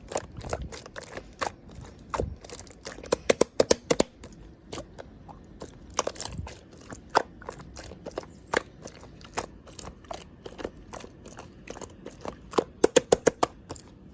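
Clear light-green slime worked by hand, giving irregular sharp pops and clicks, with quick runs of several pops about three seconds in and again near the end.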